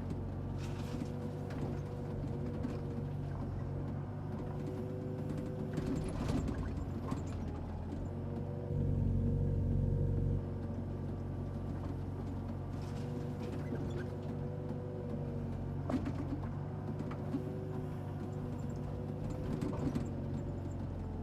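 Excavator's diesel engine running steadily with a wavering whine over it. It gets louder for a second or two about nine seconds in, and a few short knocks sound along the way.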